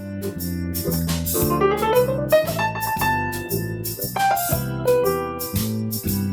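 Piano music with steady low notes underneath and a quick run of rising notes about a second and a half in.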